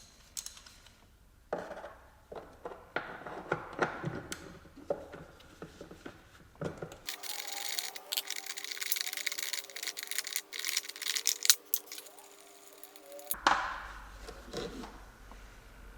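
Socket wrench and extension being worked on a nut: irregular metallic clicks, clinks and knocks, with a denser run of rapid clicking in the middle.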